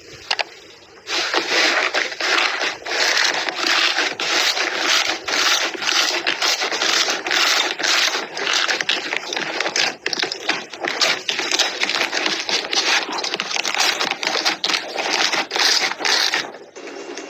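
Slime being squeezed and kneaded by hand in a large tub, giving a dense run of wet crackles and small pops. The sound begins about a second in and drops away shortly before the end.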